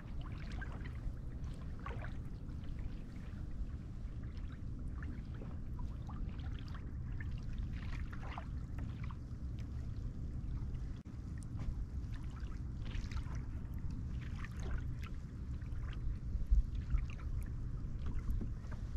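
Water trickling and lapping against the hull of a slowly moving kayak, with small scattered splashes over a steady low rumble.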